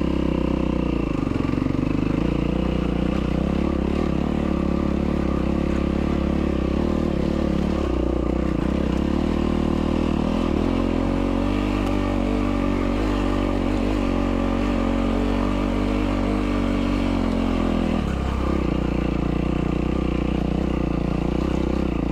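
A Yamaha WR450F's single-cylinder four-stroke dirt-bike engine running under throttle on a rough trail. Its note rises and falls with the throttle and changes distinctly about 18 seconds in.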